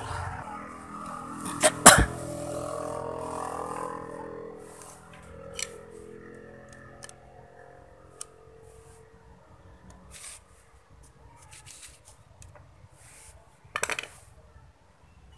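Scattered clicks and knocks from hands and a screwdriver working the wires and capacitor in an electric motor's terminal box. Two sharp clicks about two seconds in are the loudest, and a quick cluster of clicks comes near the end.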